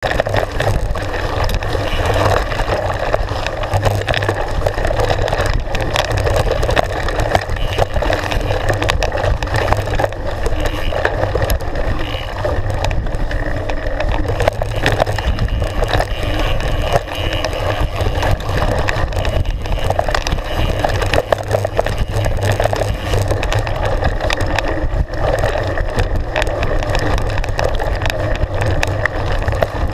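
Mountain bike riding fast down a rough dirt trail: steady wind buffeting the microphone, with tyre noise and constant small knocks and rattles from the bike over stones and roots.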